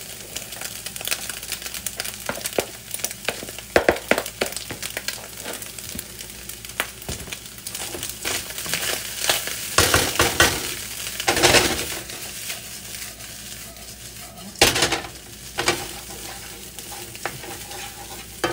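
Cold cooked rice sizzling in a hot wok as it is tipped in from a plastic container and then stirred and scraped with a wooden spatula. The hiss is steady, with many small clicks of grains and spatula, and there are louder spells of stirring about ten to twelve seconds in and again near fifteen seconds.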